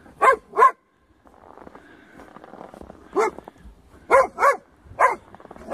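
A dog barking, about seven short, sharp barks, mostly in quick pairs, with a pause of about two seconds after the first pair. It is the agitated barking of a leashed dog at a red fox in sight.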